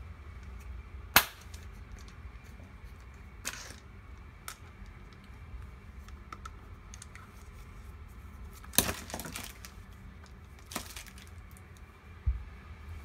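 Handling noise from a dash camera's hard plastic suction-cup mount and its cable against a stone countertop: a few scattered sharp clicks and knocks, the loudest about a second in and another near nine seconds, with a low thump near the end, over a faint steady low hum.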